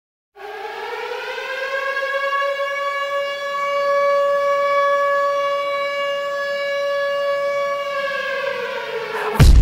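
A siren tone winds up about half a second in, holds one steady pitch for several seconds, then winds down near the end. It is cut off by a loud hit as a drum beat starts.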